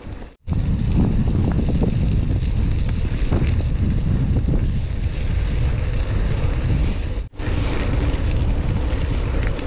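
Loud wind buffeting the microphone while riding a gravel bike, a dense low rumble. It cuts out briefly twice, about half a second in and again about seven seconds in.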